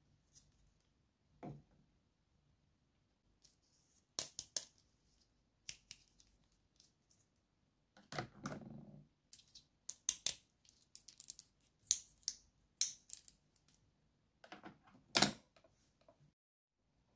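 Hard plastic toy doctor tools clicking and tapping against a plastic carry case as they are handled and clipped into its rack: scattered sharp clicks, with a duller scrape lasting about a second about halfway through.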